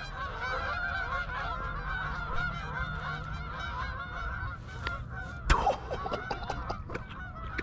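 A large flock of Canada geese honking overhead, many calls overlapping without a break. A single sharp crack cuts through about five and a half seconds in.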